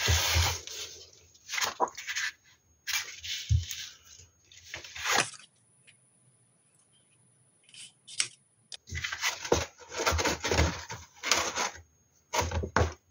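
Black cardstock rustling and scraping under the hands as panels are pressed down, glued and folded, with a cloth rubbed over the card at the start. Irregular bursts of handling with a few seconds of near quiet in the middle, then busier rustling near the end.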